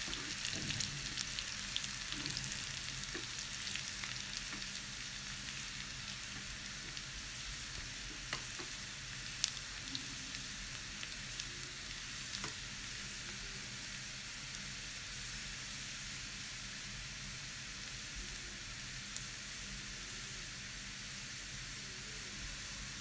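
Finely chopped garlic sizzling steadily in hot oil in a small pan, frying until it browns for a garlic tadka. Now and then a spoon clicks against the pan as it is stirred.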